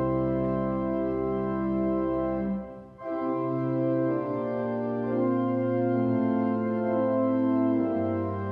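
Church organ playing sustained chords that change every second or two, with a short break about three seconds in before the next phrase.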